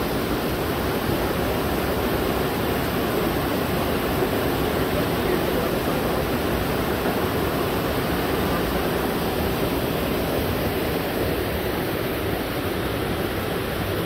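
Waterfall rushing: a steady, unbroken wash of falling water, with the river running high after a storm.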